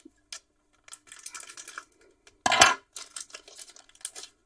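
Foil trading-card pack wrapper crinkling and tearing as it is cut open with scissors and pulled apart by hand. There is one short, louder sharp noise about halfway through.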